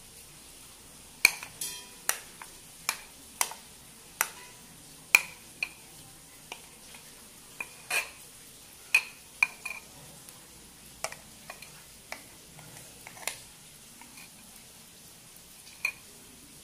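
A spoon clinking against a glass mixing bowl and a metal cake tin while thick cake batter is scraped out: about twenty irregular, sharp, short-ringing clinks.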